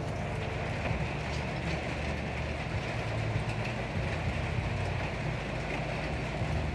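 Water running steadily into a cow water tank while it fills, a constant rushing with a low steady hum underneath.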